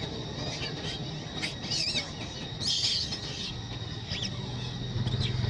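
Several short high-pitched animal chirps and squeaks, the longest and loudest a rough squeal about three seconds in, over a steady outdoor background.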